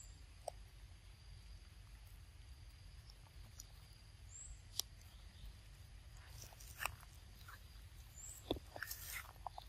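Quiet outdoor ambience with scattered small clicks and crunches from pig-tailed macaques handling and biting a mango and scrambling over stones. The clicks grow busier near the end, and a few faint high chirps come and go.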